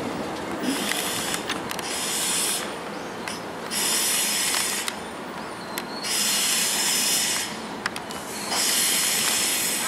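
Korail Line 1 electric commuter train moving slowly at the platform, under a steady rumble with a hiss that comes and goes in about five bursts, each roughly a second long.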